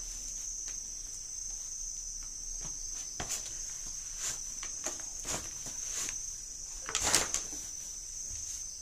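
A steady high insect trill, like crickets, runs throughout. Over it come scattered short knocks and rustles of a sneaker being handled and set down on a concrete floor, loudest in a cluster about seven seconds in.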